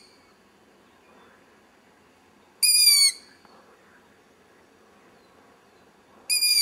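Owl chick screaming: a loud, high-pitched squeaky call, given twice about three and a half seconds apart, each call about half a second long and dipping slightly in pitch at its end.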